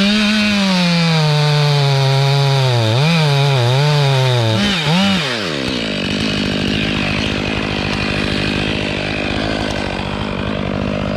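A large two-stroke chainsaw, the Husqvarna 3120, cutting a scarf into a mountain ash trunk. Its engine pitch sags and wavers under load for the first few seconds. About halfway through it settles into a steadier, denser cutting noise as the chain chews through the wood.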